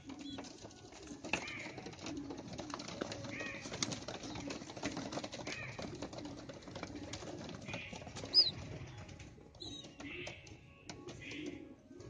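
A flock of young racing pigeons cooing low in repeated swells, with a scatter of clicks and wing flaps as they shuffle together. Higher chirps come now and then, with one sharp one about two-thirds of the way in.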